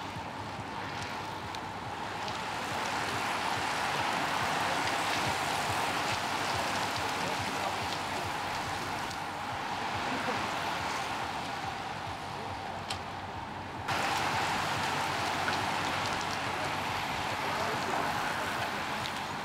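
A large pack of road bicycles riding past: a steady rush of many tyres and chains on the road, with riders' voices mixed in. The sound steps up louder about fourteen seconds in.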